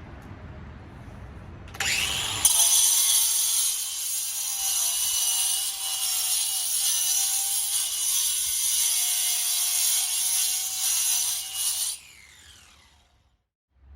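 Ryobi ONE+ 18V cordless 4-1/2 in. angle grinder (P421) spinning up with a rising whine, then grinding into stone for about ten seconds with a loud, hissing rasp. It is switched off near the end and the motor winds down with a falling whine.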